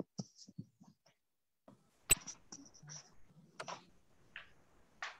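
Faint handling noise picked up by an open video-call microphone: scattered soft clicks and rustles, with one sharp click about two seconds in.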